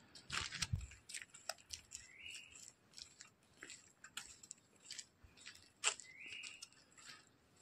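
A bird calling twice, faintly: a short call that slides upward, about two seconds in and again near six seconds, among scattered faint clicks and crackles.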